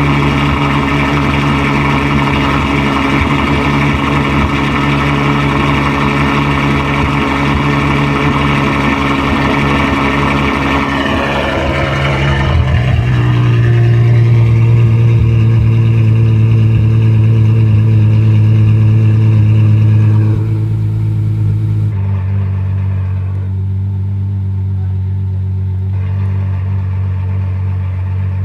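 Ferrari F12's 6.3-litre V12 idling through a titanium Valvetronic Designs valved exhaust. The idle is high and steady, then drops to a lower, deeper idle about twelve seconds in, and the sound gets quieter around twenty seconds in.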